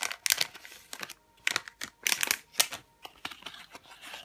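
Foil surprise-bag packet crinkling and rustling in the hands, a run of short crackles, as the opened bag is handled and its paper insert card is slid out.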